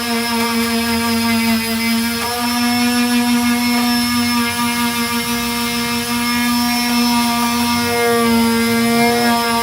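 Power sander with a 240-grit disc running steadily on body filler, giving a continuous motor whine whose pitch wavers slightly.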